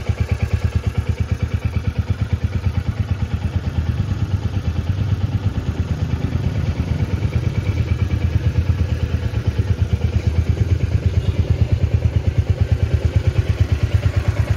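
Royal Enfield Classic 350's single-cylinder engine idling through its stock silencer, a steady, even thump-thump of exhaust beats: the marque's signature 'dook dook' sound.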